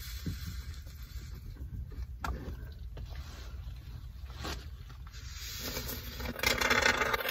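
Scraping and rustling of a sweatshirt and work gloves against the joists and subfloor while a can of spray-foam insulation is worked along a seam overhead, with a few small clicks and a louder hiss near the end.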